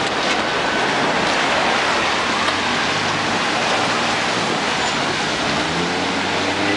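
Rain falling on a city street, a steady hiss, with traffic on the wet road; a vehicle's engine hum grows stronger near the end as it passes.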